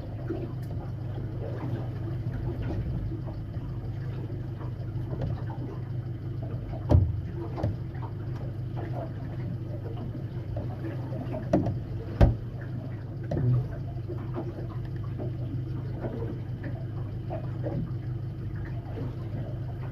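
Boat motor idling with a steady low hum, with a few sharp knocks about a third and two thirds of the way through.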